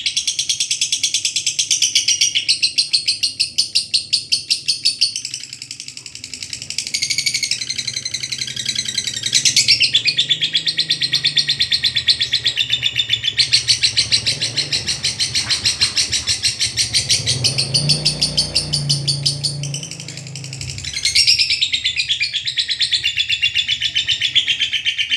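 Lovebird giving its long 'ngekek' chatter: a high-pitched trill of rapid, repeated notes, with short breaks about six and twenty seconds in.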